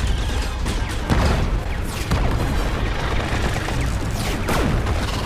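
Film sound effects of a starship bombardment: a dense, continuous barrage of explosions and booms over a heavy rumble, with several falling whooshes of incoming fire.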